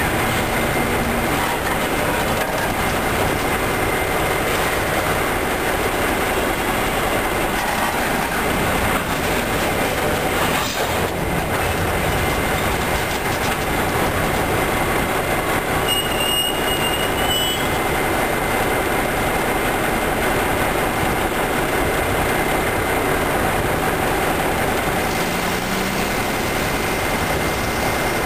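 Freight cars rolling slowly past, with steel wheels clattering over the rail joints. A brief wheel squeal comes about two-thirds of the way through.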